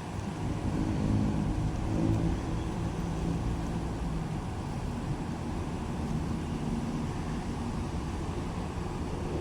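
Coach bus's diesel engine running close by, loudest in the first couple of seconds and then steady, as a bus moves off.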